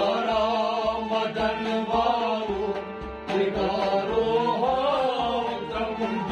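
A man singing a devotional kalam in long, gliding, ornamented notes over sustained harmonium chords, with a low drum keeping an even beat beneath.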